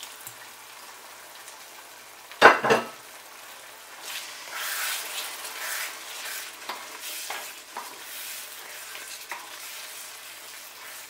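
Wooden spatula stirring and scraping a thick brinjal gravy in a nonstick pan, over a faint steady sizzle. A single brief loud knock comes about two and a half seconds in, and the stirring strokes come one after another from about four seconds on.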